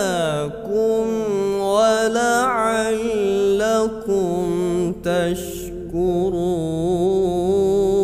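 A man's voice reciting the Qur'an in the melodic tilawah style, drawing out long ornamented melismas on single syllables, with brief breaks for breath about half a second in, at four seconds and around five seconds.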